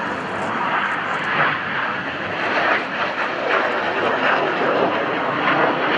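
BAE Hawk T1 jet's Adour turbofan engine in flight: a steady, loud rushing jet noise that swells a little midway.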